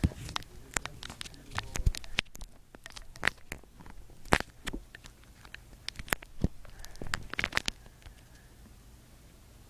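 Hands fumbling with hardware: a string of irregular clicks, taps and knocks, bunched more closely a little after halfway through.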